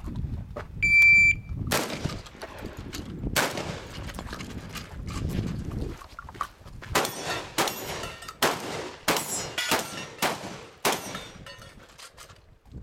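Electronic shot-timer beep, then a Benelli shotgun firing a string of shots: two about a second and a half apart, a pause of a few seconds, then a rapid run of about half a dozen shots roughly half a second apart.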